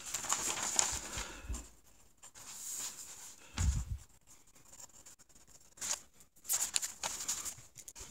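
Paper rustling as a legal-pad page is turned over, a dull thump a little before halfway, then a mechanical pencil scratching on the paper as it writes.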